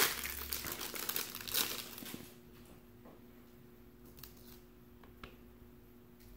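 Foil wrapper of a 1993-94 Fleer Ultra basketball card pack crinkling as it is torn and peeled off, for about two seconds. After that the cards are handled with a few faint clicks.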